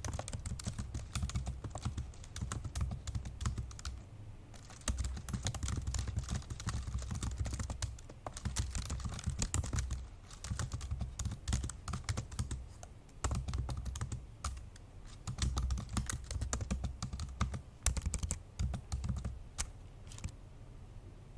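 Fast, forceful typing on an old MacBook Pro laptop keyboard: quick runs of key clicks broken by brief pauses.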